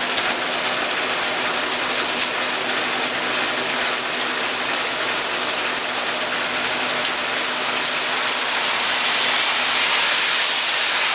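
Heavy rain falling steadily, a dense, even hiss with fine crackle from drops hitting surfaces.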